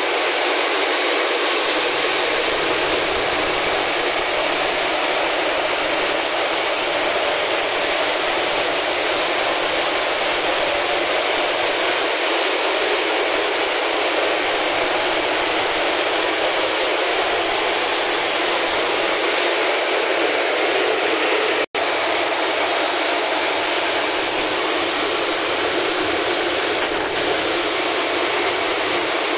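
Optical colour sorter for toor dal running: a steady, loud hiss of machinery and air, unchanging apart from a split-second dropout about two-thirds of the way through.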